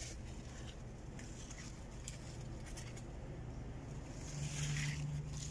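Faint low background rumble with a few light clicks, and a steady low hum for about a second near the end.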